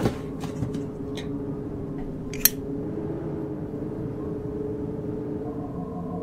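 Sound-design drone: a steady low hum, with a soft thump at the start and a sharp click about two and a half seconds in. Near the end a higher steady hum joins it as a cartoon flying saucer comes in.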